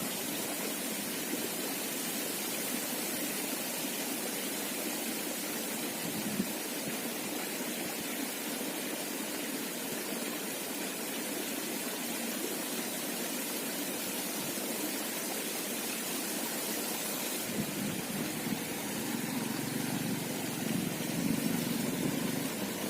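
Steady rush of flowing stream water, an even hiss with no breaks, growing a little fuller and lower in the last few seconds.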